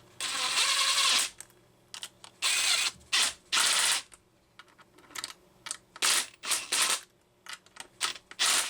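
A ratchet wrench clicking in short bursts, about eight turns with pauses between them, the first and longest lasting about a second.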